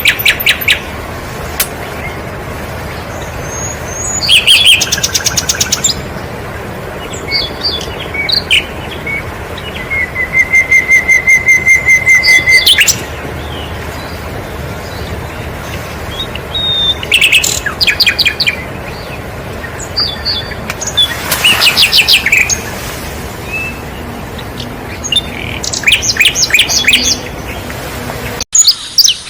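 Songbirds chirping and trilling in repeated bursts of quick high notes, including a steady run of evenly spaced notes about ten seconds in. The recording cuts abruptly near the end.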